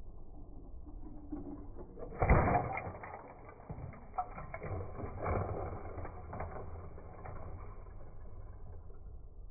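A Lego plane crashing: a sharp plastic impact about two seconds in, then several seconds of Lego bricks clattering and rattling as pieces break off and scatter, with a second burst of clatter a few seconds later.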